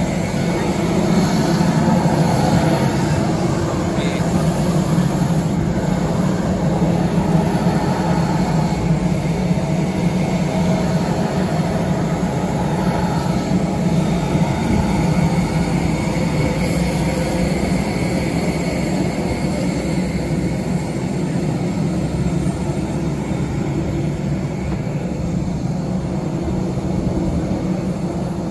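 Steady rumble of an airport apron: an apron bus and a parked jet airliner running, with a faint steady high whine over the top.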